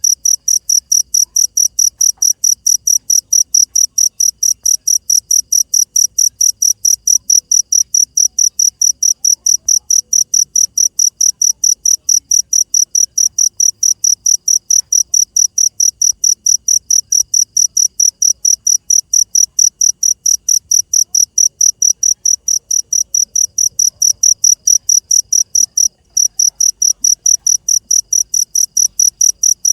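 A cricket chirping in a fast, even, high-pitched pulse train, broken by one brief gap near the end.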